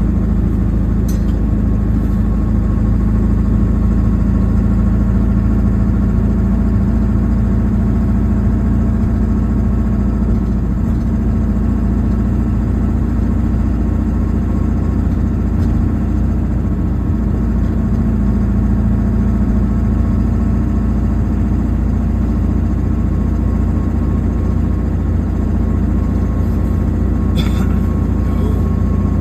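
A vehicle's engine running at a steady pitch with road noise, heard from inside the cab while driving, with a brief click near the end.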